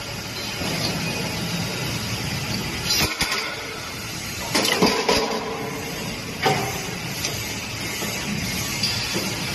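Automatic steel-bar feeder for hot forging at work: sharp metallic clanks and knocks about 3 s in, around 4.5–5 s and about 6.5 s in as the steel bars are moved by the pneumatic cylinders. A steady machine noise runs underneath.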